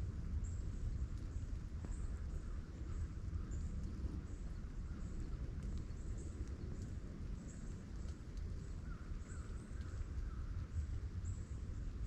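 Outdoor ambience: a steady low rumble, with a small animal's short, high chirp repeating about twice a second.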